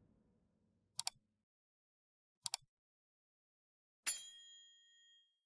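Sharp double clicks, twice, about a second and a half apart, then a click with a short bright chime that rings out and fades over about a second.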